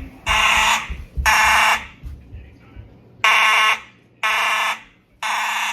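Fire alarm sounding in the temporal-three pattern: three half-second blasts about a second apart, a pause, then three more. This is the standard evacuation code.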